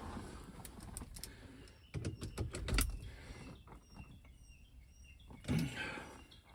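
Handling noises from work on a truck's steering wheel: a quick run of clicks and knocks about two seconds in and a heavier thump near the end, with faint birdsong behind.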